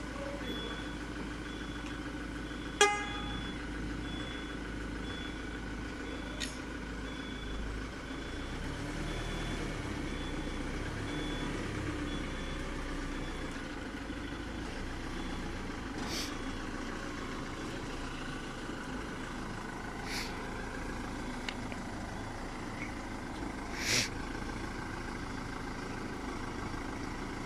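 Ford Transit van's engine running steadily as it reverses slowly, with an evenly repeating high reversing beep for roughly the first half and a short, loud horn toot about three seconds in. Several brief hisses come through later, the strongest near the end.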